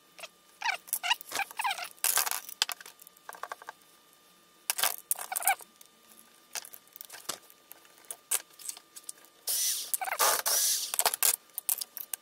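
Hand disassembly of an angle grinder: irregular clicks, taps and scratchy rattles as its plastic housing and metal parts are handled and worked with a screwdriver. A longer scraping rustle comes near the end.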